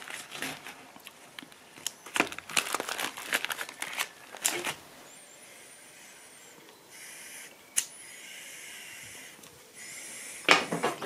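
Foil tobacco pouch crinkling and rustling as a pipe is filled, for about the first five seconds. Then a lighter hisses in a few stretches of a second or two, with a single sharp click, as the pipe is lit, and a short burst of crackling comes near the end.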